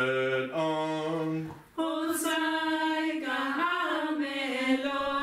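A man and a woman singing together without accompaniment, holding long notes in two voice parts, with a short break about a second and a half in.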